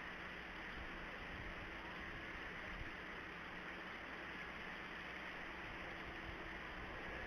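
Steady outdoor background hiss from an open-air microphone, even throughout, with no distinct bird calls standing out.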